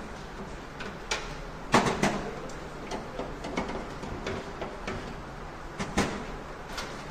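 Scattered clicks and knocks, as of hard objects being handled and set down, over a steady low hum; the loudest knocks come about two seconds in and again about six seconds in.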